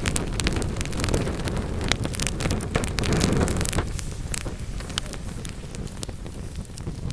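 Wood fire crackling in a fireplace: many sharp snaps and pops over a low rush of burning flames. The low rush eases off about four seconds in, leaving mostly the crackles.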